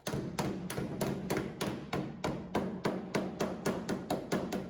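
A small flat-faced hammer striking a sheet-metal body panel in a rapid, even run of blows, about five a second and a little quicker near the end, with a second hammer held behind the panel as a makeshift dolly. The blows are knocking out a crease in the metal.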